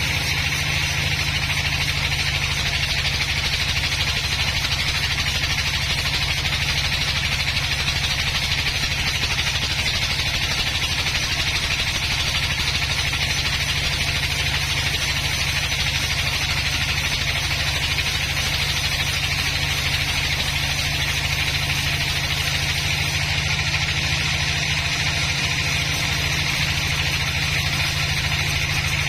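A sawmill's engine running steadily at one constant speed, a deep hum with a steady hiss above it.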